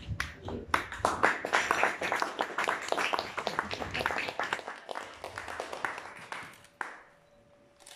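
A small audience applauding, a dense patter of hand claps that dies away near the end.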